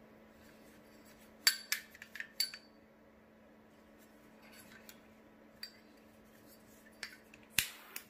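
Flip-top metal lighter cases clicking as their lids are flipped open and snapped shut: a quick cluster of sharp clicks early on, then single clicks, with the loudest snap near the end.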